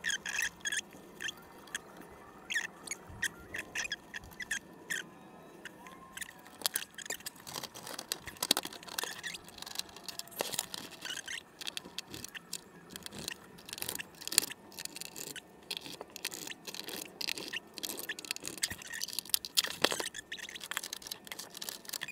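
Irregular clicks, taps and scrapes of hands working on an NEC PA500U projector's plastic casing and parts: cable connectors pushed home, then a screwdriver driving screws into the housing.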